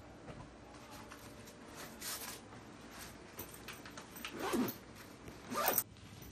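Backpack zipper pulled shut in two strokes, each a rising rasp, the second the louder, after soft rustling of folded T-shirts being handled.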